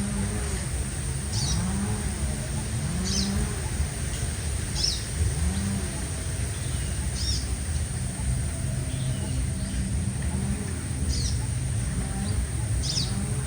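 Sunbird giving short, high calls about every second or two, over a steady high hiss, with low rising sounds repeating underneath.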